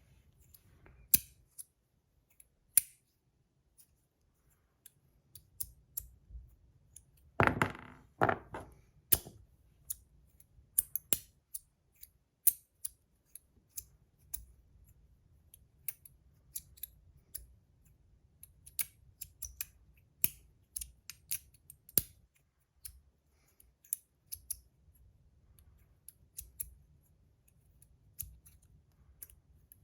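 Brass micro magnetic slider fidget being worked back and forth, its parts snapping together under the magnets in sharp metallic clicks at an irregular pace. A louder, longer handling sound comes about seven and a half seconds in.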